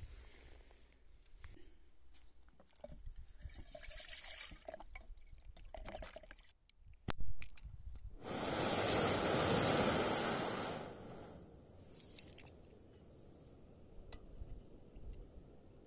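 Small handling sounds, then the clicks of a piezo igniter on a gas canister camping stove, followed by the burner lighting with a loud hiss for about two and a half seconds. The hiss then drops to a low, steady burn.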